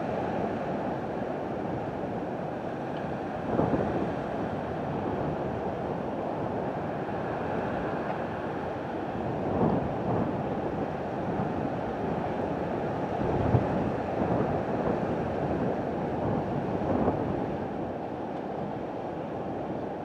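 Sea surf breaking and washing over a rocky shore: a steady rush of water with several louder surges as waves come in.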